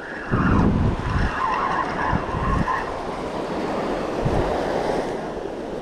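Fishing reel whirring with a steady whine while a hooked shark is being fought, fading out after about three seconds. Wind buffets the microphone in low thumps over the wash of surf.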